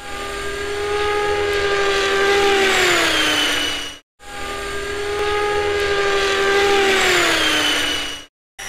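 Helicopter fly-by sound effect, played twice in a row. Each time, a steady engine and rotor whine grows louder, then drops in pitch as it passes and cuts off sharply.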